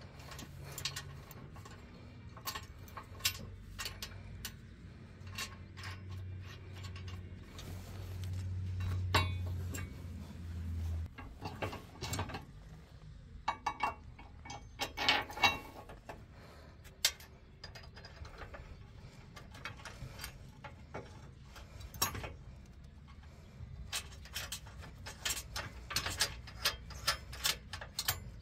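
Ratchet wrench clicking and metal parts clinking as bolts are tightened on a steel tow-hook bracket under an SUV. The clicks come in irregular bunches, then in a regular run of quick clicks near the end. A low hum underneath stops abruptly about a third of the way in.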